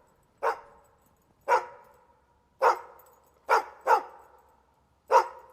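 Pug puppy barking: six short, sharp barks about a second apart, two of them in quick succession in the middle, each fading away briefly.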